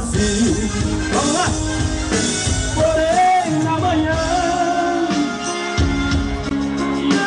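Live band music with a man singing into a microphone.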